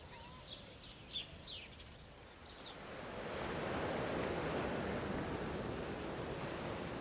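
A few faint bird chirps over near-quiet, then from about three seconds in a steady rush of sea water churned in a ship's wake.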